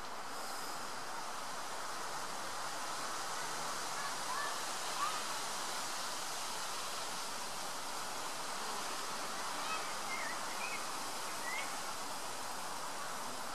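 Wind rustling steadily through tall reed grass, an even hiss, with a few brief faint chirps about four seconds in and again near ten to eleven seconds.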